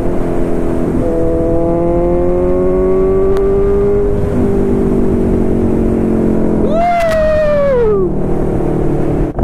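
Kawasaki Z900 inline-four engine running, its revs climbing slowly through the first few seconds, then a sharp throttle blip about seven seconds in that jumps up and falls away over about a second.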